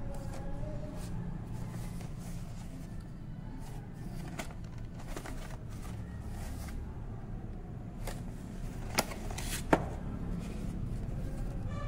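Cardboard boxes being handled and turned over, with soft rubbing and light taps, then two sharp clicks close together near the end as boxes are set down on a table, over a steady low hum.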